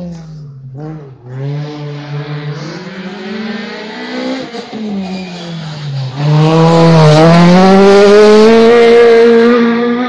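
Peugeot 208 rally car's engine coming down to the hairpin, its revs rising and falling through gear changes. About six seconds in it gets much louder as the car passes close and accelerates out of the bend, the note climbing steadily.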